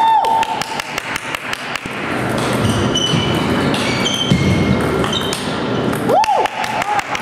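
Table tennis balls clicking off bats and tables in a sports hall where several matches are being played at once, with a player's short shout right at the start and another about six seconds in.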